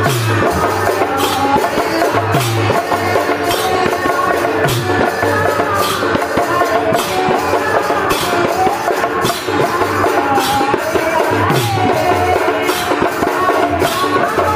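Odia kirtan music: large barrel drums and hand cymbals keep a steady rhythm, the cymbals clashing a little under twice a second and a deep drum stroke that drops in pitch sounding about every two seconds, with group singing over it.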